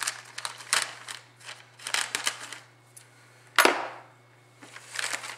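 Scissors cutting through a plastic postal mailer, with crinkling of the plastic film. About three and a half seconds in comes a single sharp snap or thump, the loudest sound, and crinkling starts again near the end.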